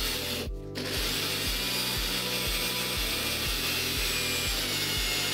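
Electric drill boring into a small metal PC-motherboard heatsink, a harsh grinding that stops briefly about half a second in and then runs steadily. Background music with a steady beat plays underneath.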